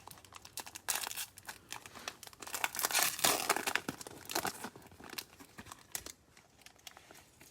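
Trading-card pack wrapper being torn open and crinkled: dense crackling crinkles for the first few seconds, thinning to faint rustling near the end.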